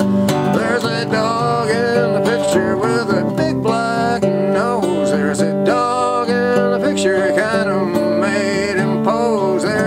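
Instrumental break of a folk song on a Gibson acoustic guitar, strummed chords with a steady bass, and above them a melody that slides and wavers in pitch.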